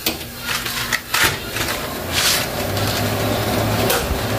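Cardboard box of dry spaghetti being handled and opened: rustling cardboard with the sticks rattling inside, and a few sharp knocks in the first second or so.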